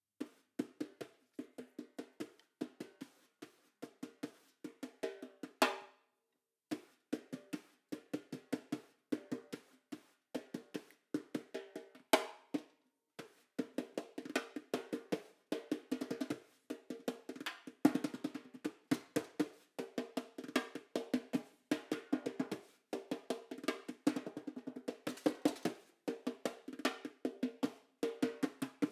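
Solo snare drum played with sticks: fast, dense strokes and rolls with sharp accents, the drum's head ringing under each stroke. The playing breaks off briefly about six seconds in and again about thirteen seconds in.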